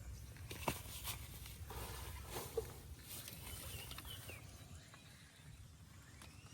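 Outdoor ambience with a steady low rumble, a few sharp clicks and knocks in the first three seconds, and faint high chirps a little later.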